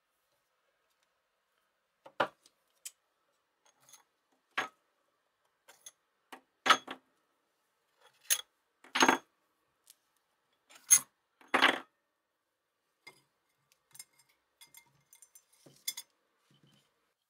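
Metal parts of an old electric motor clinking and knocking as its cast end housing is worked off the wound stator and long tie rods are set down: about a dozen separate sharp knocks, the loudest in the middle.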